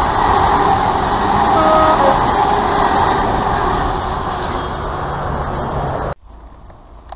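Freight train running past and away along the line: a loud, steady rushing noise that eases slowly, with a short pitched tone about a second and a half in. The sound cuts off abruptly about six seconds in.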